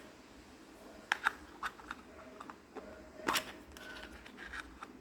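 Small plastic toy pieces being handled and set down, giving a scattered series of light clicks and taps, the loudest a little past the middle.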